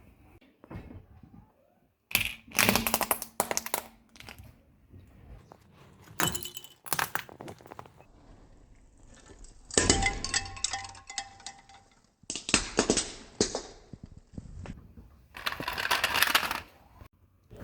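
Objects cracking and crunching as they are crushed under a car tyre, in about five separate bursts of one to two seconds each with quieter gaps between.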